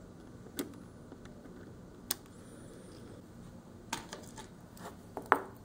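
A handful of small sharp clicks and taps of a metal pick tool and plastic parts as ribbon-cable connectors are worked loose from a laptop motherboard, the loudest click near the end.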